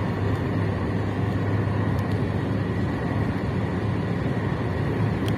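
Steady road noise inside a moving car: a low, even engine and tyre hum that does not change.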